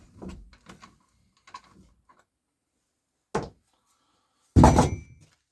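A few light knocks, then two loud clunks of metal or hard objects being handled and set down, the louder one near the end.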